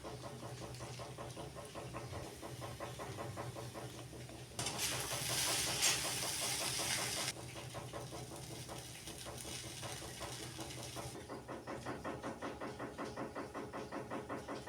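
Poha cooking in a pan: a soft steamy hiss and sizzle, louder for about three seconds near the middle, with a faint regular pulsing underneath that grows clearer towards the end.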